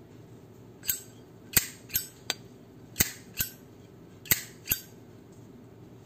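Zippo lighter's hinged lid and cam spring clacking, about eight sharp metallic clicks that come mostly in pairs, like the lid being flicked open and snapped shut several times.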